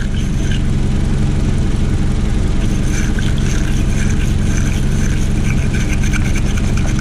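Toyota Camry engine idling steadily, running on its alternator alone with the battery disconnected. Over it comes repeated scratching from a terminal-cleaner wire brush scrubbing inside the battery cable clamp, mostly in the second half.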